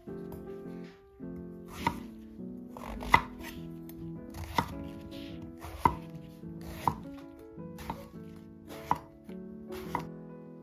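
Chef's knife chopping eggplant into chunks on a wooden cutting board, the blade knocking the board about once a second, some eight strokes, over soft piano music.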